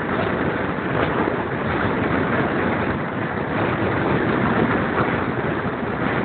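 Steady rush of wind over the microphone mixed with the running noise of a steam-hauled passenger train, heard from an open carriage window while the train is moving along.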